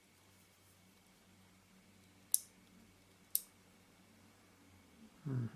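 Two small, sharp clicks about a second apart from the partly dismantled Synchro Compur leaf shutter mechanism as it is worked by hand to reset its sticky blades.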